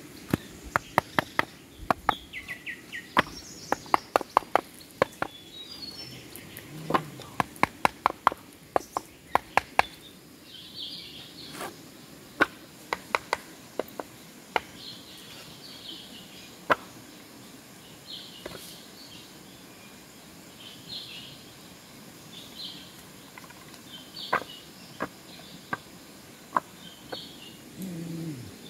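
Sharp knocks from building work, in quick runs of several strikes a second through the first ten seconds, then single strikes spaced a few seconds apart. Birds chirp through the second half.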